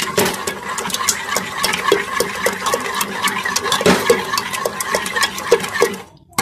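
A ladle stirring thick, cooking sarson ka saag (mustard-greens purée) in a pot: wet stirring with many irregular clicks and scrapes against the pot. It cuts off briefly near the end.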